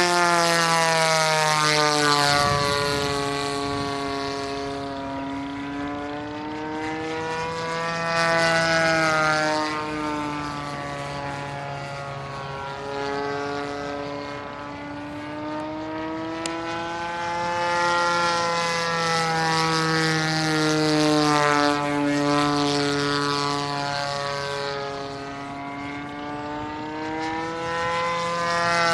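Engine and propeller of a Seagull Edge 540 radio-controlled aerobatic model plane in flight, its note rising and falling in pitch with throttle changes and passes. It swells louder several times as the plane comes by.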